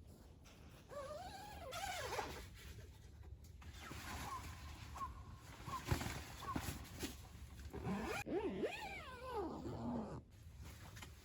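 An animal calling: pitched cries that rise and fall, in two groups, with a run of short chirps between them.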